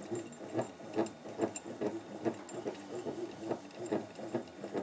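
Hornet Supercore 14-magnet permanent magnet alternator being turned by hand with a hex key in its shaft, making a rhythmic clicking of about two to three clicks a second as the rotor goes round.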